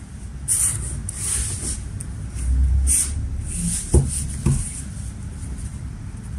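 Felt-tip marker strokes on paper: a series of short scratchy swipes as lines and letters are drawn, with two sharp knocks about four seconds in.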